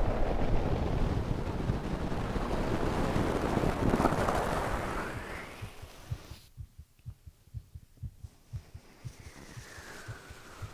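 A sleeping man's slow, steady heartbeat, heard close as if with an ear on his chest: soft low thumps in a regular rhythm. A long rushing breath swells over them, peaks about four seconds in and fades out about six seconds in, leaving the thumps alone. The breath starts to swell again near the end.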